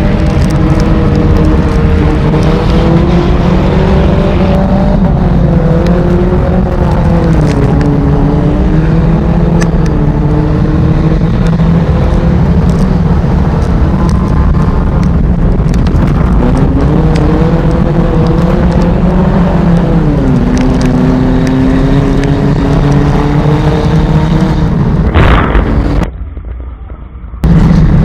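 Enduro race car's engine running hard on the track, its pitch rising and falling as the throttle comes on and off. Near the end the sound cuts out for about a second and a half, then comes back.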